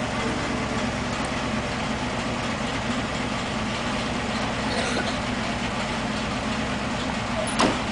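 Steady low drone of an idling engine, even throughout, with one short sharp click near the end.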